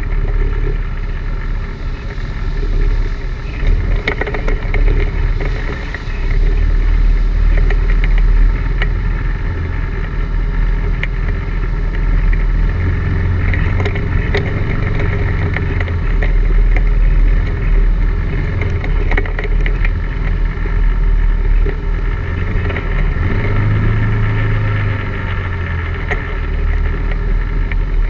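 ATV engine running continuously as the quad rides a rough, rocky and root-covered trail, its note swelling louder a couple of times. Occasional knocks and rattles come from the machine jolting over the bumps.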